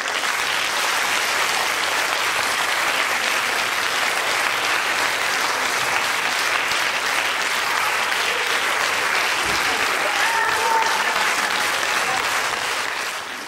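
Concert audience applauding steadily; the applause fades out near the end.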